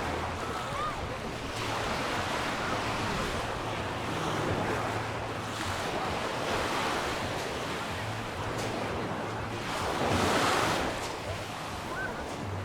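Mediterranean surf washing onto the beach, a steady hiss of waves that rises and falls, with one louder wave breaking about ten seconds in.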